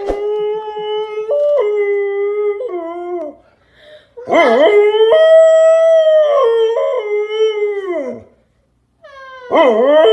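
Dog howling in three long drawn-out howls, the pitch stepping up and down within each, with short pauses between.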